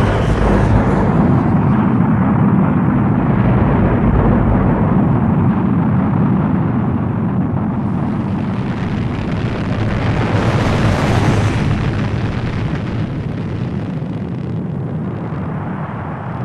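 Rocket engine firing through lift-off and climb: a loud, steady, deep rushing noise that swells briefly about ten seconds in, then slowly eases.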